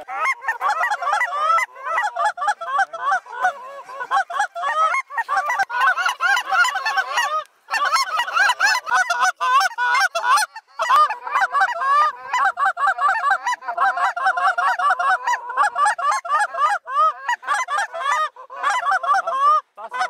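A flock of geese honking and cackling, many short calls overlapping almost without a break, with two brief gaps partway through.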